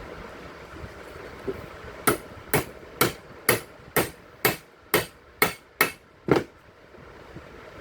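Hammer blows during bearing replacement on a Bosch GDC120 marble cutter: about ten sharp, evenly spaced strikes at roughly two a second, the last one the loudest.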